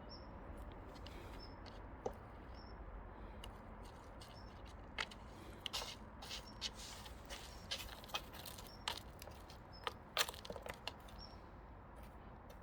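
Scattered rustles and light clicks, most likely the cat moving and pouncing in the undergrowth as it plays with a snake; the sharpest click comes about ten seconds in. A faint, short, high chirp repeats several times over a low steady background.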